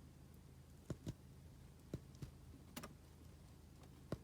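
Quiet room tone with a steady low hum and about six short, sharp clicks scattered irregularly through it.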